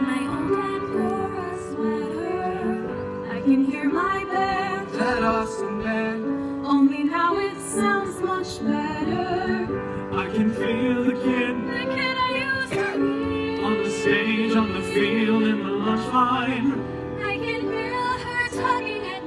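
Choir of mixed voices singing a slow ballad, accompanied by piano.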